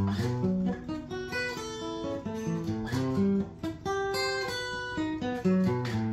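Steel-string acoustic guitar playing arpeggios over major barre chords: a quick, continuous run of single picked notes climbing and falling through each chord, the fretting hand shifting up and down the neck between chord shapes.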